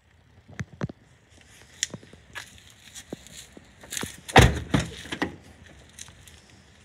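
Handling clicks and knocks of a 2011 Nissan Qashqai's driver's door being moved, with a cluster of loud clunks about four to five seconds in.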